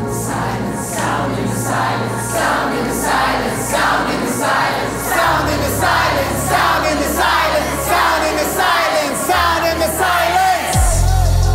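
Music: a song with a group of voices singing in a steady, repeating rhythm over held bass notes and an electronic beat. A heavy, deep bass with downward slides comes in near the end.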